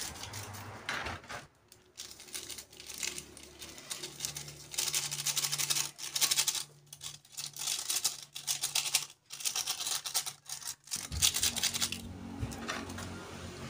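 Small plastic seasoning sachets crinkling and rustling in the hands as they are snipped open with scissors and squeezed out into a small plastic bowl. The crackling comes in several bouts with short pauses between.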